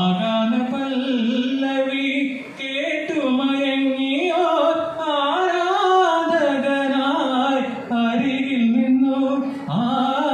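A man singing a Malayalam song solo and unaccompanied into a handheld microphone, holding long notes that bend and waver in pitch.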